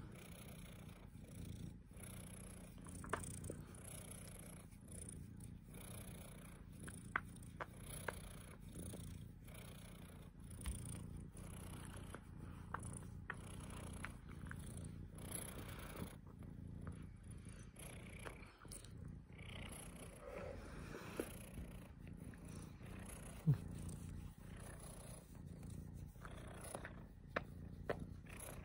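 Domestic cat purring steadily, a low continuous rumble, with a few faint clicks scattered through.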